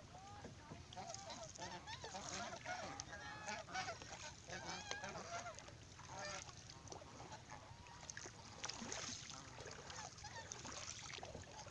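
A flock of domestic geese honking, with many short calls overlapping, busiest in the first half.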